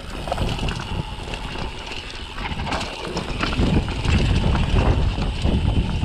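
Trek Marlin hardtail mountain bike riding over a dry dirt trail: knobby tyres crunching over dirt and dry leaves while the bike knocks and rattles irregularly over the bumps. It gets louder about halfway through.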